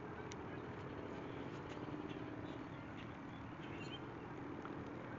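Faint, steady outdoor background noise with a low hum and a few soft, scattered ticks.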